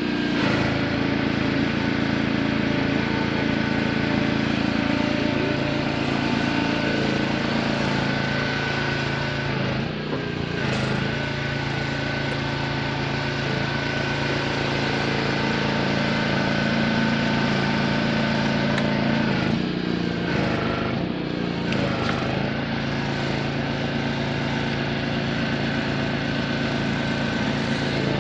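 Steady drone of a motor or engine running, with a constant pitched hum and a fast even pulse underneath, briefly dipping about ten seconds in and again around twenty seconds.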